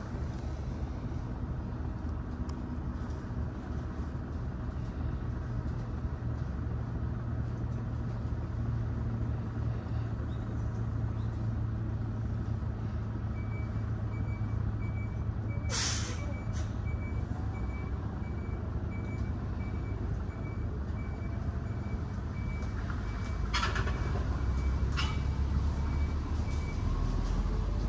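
Steady low engine rumble of a large idling vehicle, with a run of evenly spaced high beeps through the second half. A sharp hiss sounds about halfway through and two shorter hisses come near the end.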